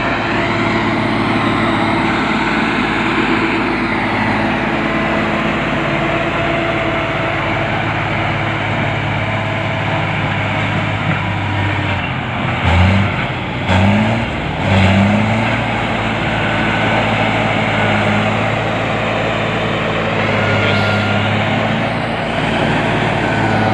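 Heavy diesel engine of an earthmoving machine running steadily under load. About halfway through, its revs rise and fall three times in quick succession.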